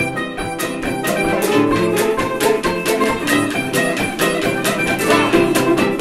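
Jug band playing a ragtime tune on plucked string instruments (banjo, guitar, mandolin), strummed and picked in a steady, brisk rhythm, starting right on the count.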